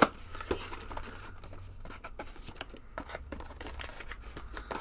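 Cardboard and plastic packaging of an action-figure box being handled as a hand reaches inside to work the figure loose: one sharp click at the start, then a run of small crinkles and taps.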